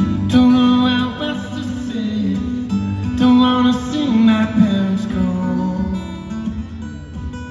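Live solo performance on a steel-string acoustic guitar, picked and strummed, with a man singing over it, heard from the audience in a large arena.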